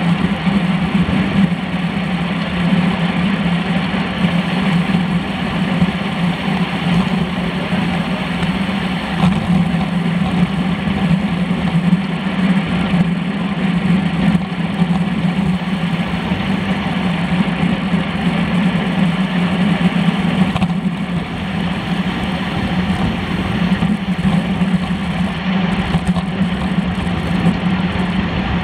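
Steady wind rush over a handlebar-mounted camera's microphone, with tyre roar from a road bike rolling on asphalt in a racing bunch.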